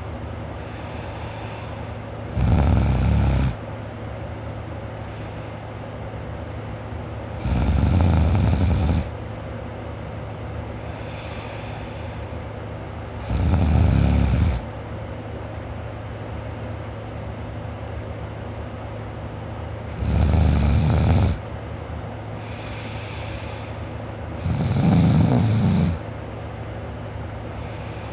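A sleeping person snoring: five loud snores, each lasting a second or so, coming about every five or six seconds over a steady low hum.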